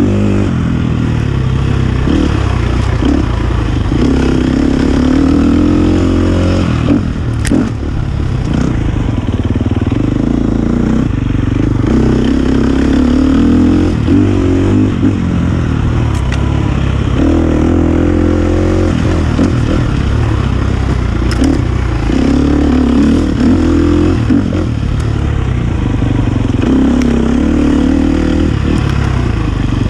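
KTM dirt bike engine running under load on a trail ride, its pitch rising and falling as the throttle is rolled on and off, with clattering and a few sharp knocks from the bike over rough ground.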